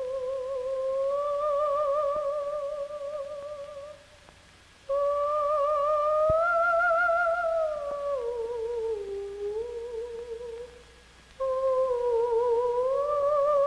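A solo voice humming a slow, wavering tune, in three long phrases with short breaks about four and eleven seconds in.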